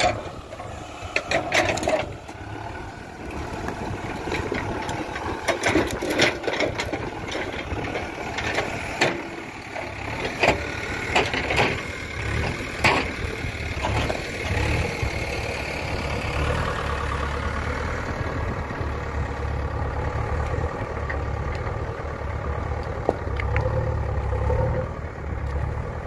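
JCB 3DX backhoe loader's diesel engine running, with many sharp knocks and clatters of rough stones striking each other through the first half. After that the engine hum is steadier and more prominent.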